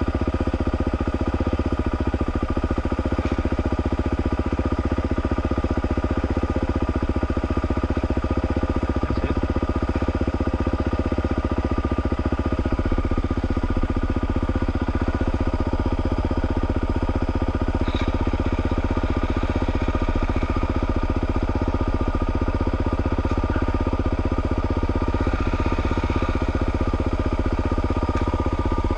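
Dirt bike engine idling steadily close by.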